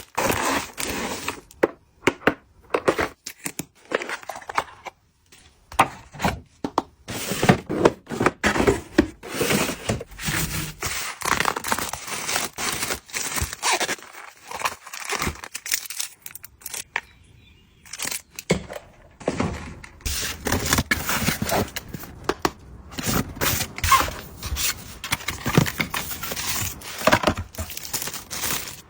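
Packaging being handled and torn open: irregular crinkling and tearing with scattered taps and knocks, pausing briefly just past the middle.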